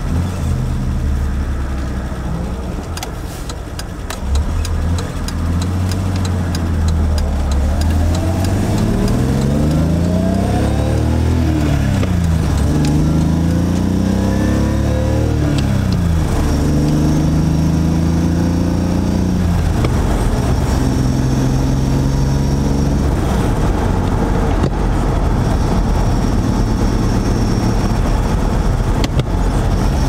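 BMW E30's engine heard from inside the cabin as the car pulls away and accelerates through the gears. The engine note rises, drops back at an upshift about eleven seconds in, rises again and drops at a second shift about sixteen seconds in, then settles into a steady cruising drone.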